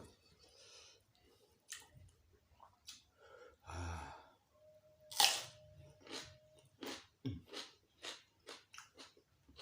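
Close-miked chewing and biting of a meal of gulai kikil with raw lalapan vegetables, one strong noise about five seconds in, then regular chews about twice a second.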